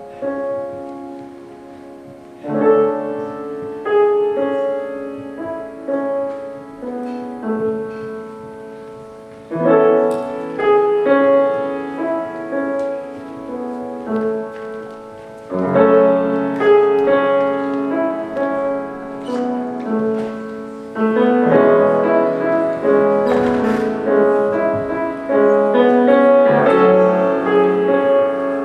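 Instrumental piano passage in an orchestral pop arrangement, without singing: chords and melody come in phrases roughly every six seconds, each fuller and louder than the last. A brief bright crash-like swell sounds about four fifths of the way through.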